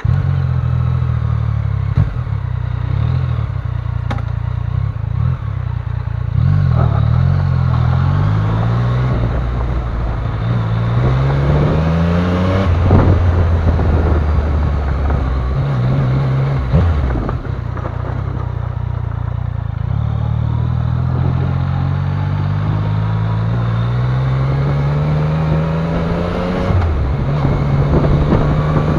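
Yamaha Niken GT's inline three-cylinder engine running under way on a forest track, its pitch climbing several times as the bike accelerates and then dropping back between rises.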